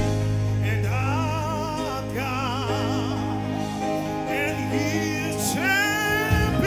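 Gospel praise song performed live: a lead voice sings with wide vibrato over held keyboard and bass notes.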